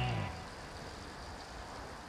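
Background music stops shortly after the start, leaving a steady rushing noise.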